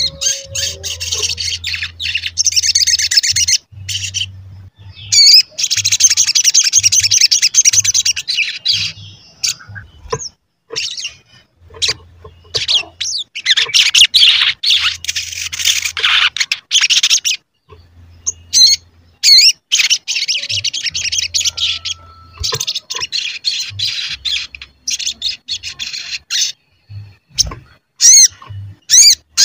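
Male olive-backed sunbird (sogon) singing: rapid, high twittering 'cuit cuit' trills in bursts of a few seconds, separated by short gaps and a few single sweeping notes.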